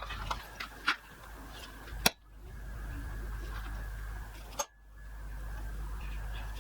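A few sharp clicks and knocks of tools and steel pieces being handled and set down on a workbench, over a steady background hum.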